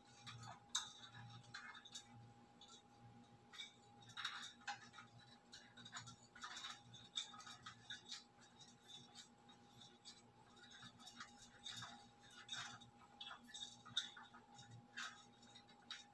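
Near silence with faint, irregular light clicks and taps from a phone being handled and fitted in the plastic clamp of a floor-stand phone holder, over a faint steady hum.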